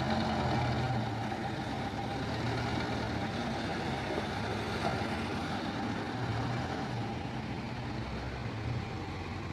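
Dump truck engine running steadily, its low hum swelling and easing a few times.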